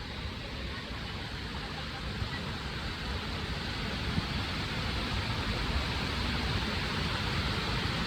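Steady rushing noise that slowly grows louder, heaviest in the low end.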